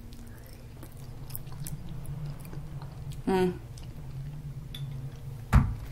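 A person chewing a mouthful of oatmeal, with soft mouth clicks. A short vocal sound comes about three seconds in, and a knock near the end.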